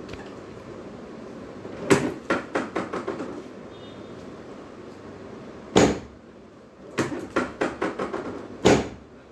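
A series of sharp knocks and clacks. A loud knock comes about two seconds in and is followed by a run of quicker, lighter clicks that fade. A second loud knock lands near the middle. Near the end a run of clicks leads into a third loud knock.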